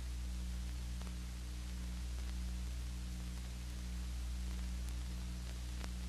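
Steady hiss and low hum of an old film soundtrack with no other sound, broken by a couple of faint clicks.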